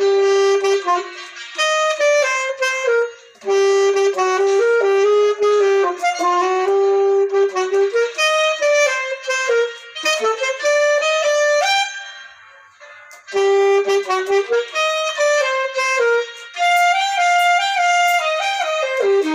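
Solo saxophone playing a rag melody one note at a time, in phrases of held and quick notes, with two short pauses, about three and a half seconds in and again around twelve seconds in.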